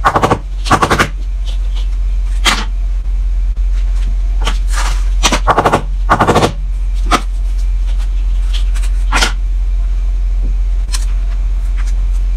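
Pink plastic snowball-maker tongs scooping and squeezing icy snow into balls: a series of sharp crunches, in quick clusters at the start and again around five to six and a half seconds in, over a steady low hum.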